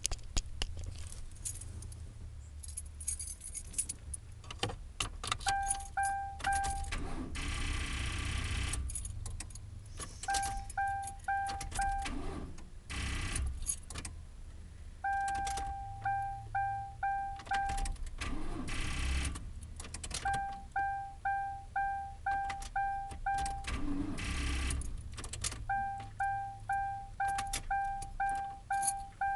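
Keys jangling and clicking in a 2001 Ford Crown Victoria's ignition while the dashboard warning chime pings about three times a second. Several times the chime breaks off for about a second of starter noise and then resumes, and the engine never catches: a no-start from a dead battery.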